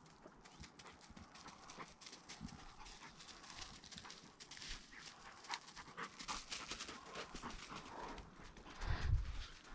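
Footsteps through dry leaf litter and low scrub: a busy crackle of small snaps and rustles, with a couple of heavy low thumps near the end.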